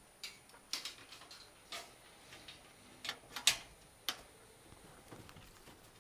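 A series of sharp, irregular clicks and light knocks from the wire-mesh door and latch of a wooden rabbit hutch being handled, the loudest two a little past halfway.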